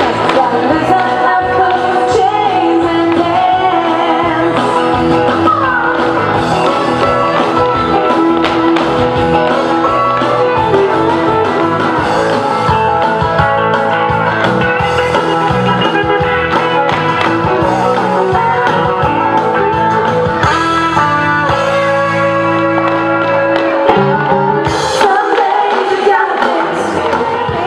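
Country dance music playing loud and steady. The bass drops away for a couple of seconds near the end.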